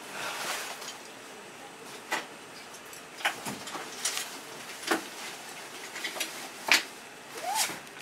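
Hinged berthing bunk lids and under-bunk storage pans being handled: a string of separate knocks and clanks about a second apart, the loudest about two-thirds of the way in, with a short squeak near the end.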